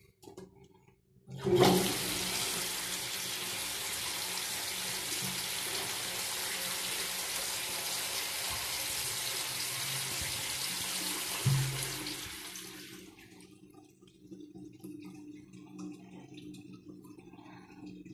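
Metal squat (Turkish) toilet flushing: water comes in abruptly with a loud surge about a second and a half in and rushes steadily across the steel pan for about ten seconds, then fades to a faint trickle.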